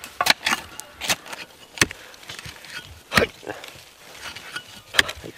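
Long-handled hoe chopping into clay soil around the base of a spring bamboo shoot, digging it out: about six sharp strikes at irregular intervals of one to a few seconds.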